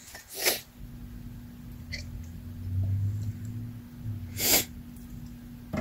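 Two sharp, loud bursts of air through a congested nose, sneeze-like snorts about four seconds apart.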